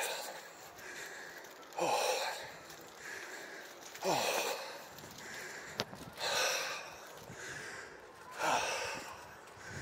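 A person breathing hard and deeply, a loud breath about every two seconds with softer ones between, out of breath from climbing steps.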